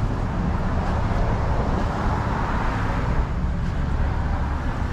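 Street traffic: a steady low rumble with a vehicle passing, its rush of noise swelling about halfway through and then easing.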